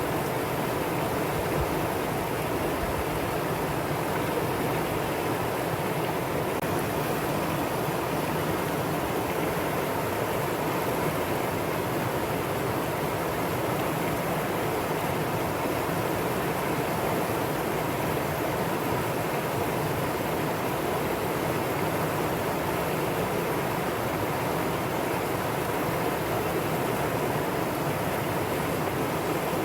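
Valley stream rushing steadily over rocks, a constant full water noise with no breaks.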